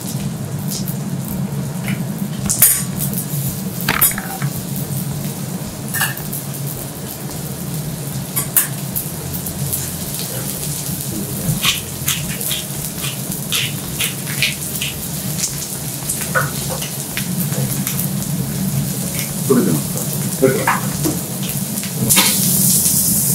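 Fish and mushrooms sizzling on a steel teppanyaki griddle, over a steady low hum. A metal spatula and tongs click and scrape against the plate again and again.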